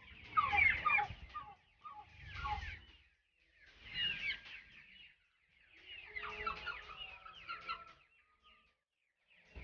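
A flock of chickens, mostly young chicks, peeping and calling in four or five short bursts with brief pauses between them, many birds at once.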